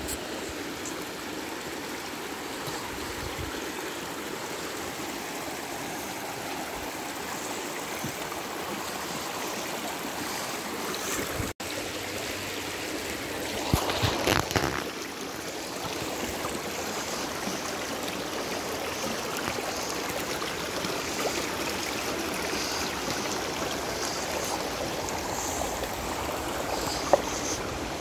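Creek water rushing steadily over rocks. About halfway there is a short, louder burst of handling noise as a hand brushes the camera, and there are a few sharp clicks near the end.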